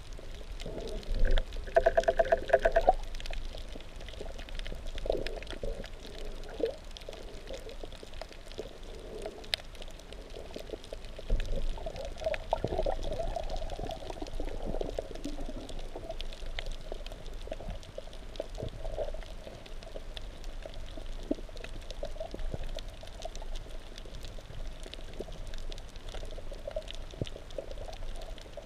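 Muffled underwater noise heard through a GoPro's waterproof housing: water rushing and sloshing as the diver swims, with a brief buzzing tone about two seconds in and a louder wash of water midway.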